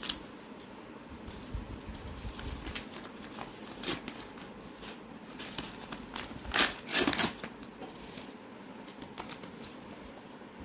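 Paper courier envelope being torn open and crinkled by hand, a run of scattered rips and rustles with the loudest tears about 4 and 7 seconds in.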